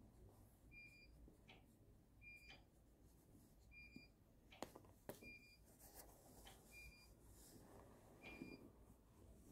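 Hospital ward equipment beeping faintly: a short, high electronic beep repeating evenly about every one and a half seconds. Soft rustling of baby clothes being handled, with a couple of light clicks about halfway through.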